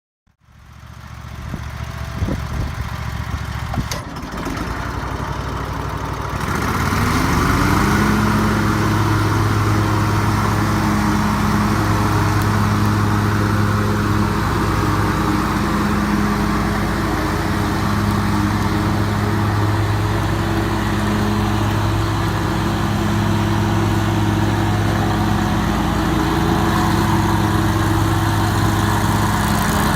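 Zero-turn riding mower's engine running, throttled up about six seconds in: its pitch rises, then it holds a steady, even drone at full speed.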